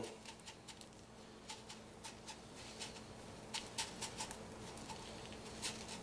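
Loose bird seed pattering and crackling faintly as a peanut-butter-coated cardboard roll is pressed and rolled through it on a plate: a scatter of small irregular ticks.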